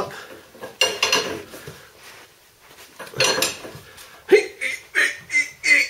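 Socket wrench tightening the nut on a VW T3 radius rod's polyurethane bush: metal clinking and clicking in short strokes, coming several in quick succession near the end.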